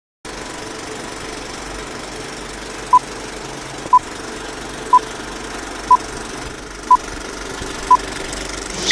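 Film-leader countdown sound effect: a short high beep once a second, six times, over a steady film-projector rattle and hiss.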